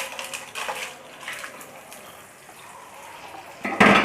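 Pieces of gond (edible gum) sizzling and crackling in hot desi ghee as they fry, with many small pops in the first second or so. There is a short, loud burst near the end.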